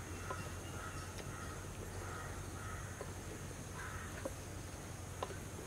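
Faint crows cawing a few times in the background, with a few light clicks of a spatula stirring chicken in a thick milk gravy in a pot.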